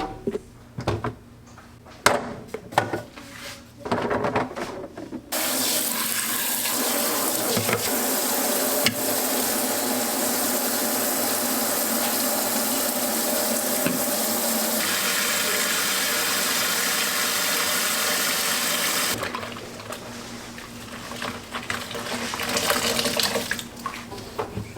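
Water tap running hard into a sink, turned on about five seconds in and shut off about fourteen seconds later, with a slight change in its sound partway through. Light knocks and clinks of things being handled come before and after.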